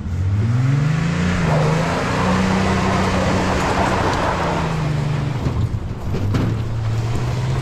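Car engine revving up for a one-wheel burnout: it climbs over the first second or so, holds high for a few seconds with the rushing noise of the spinning tyre, then drops back about five seconds in and settles at a steady lower speed.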